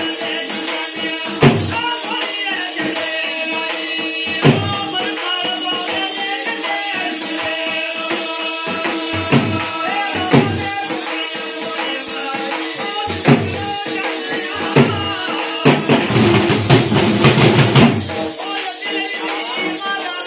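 Devotional bhajan music: singing over tambourine jingles, with loud drum strikes every few seconds and a fast run of drumming near the end.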